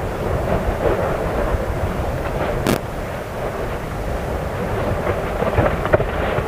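Fagradalsfjall volcano's vents fountaining lava: a steady low rumbling noise of gas and spatter, broken by a sharp crack a little under three seconds in and another near six seconds.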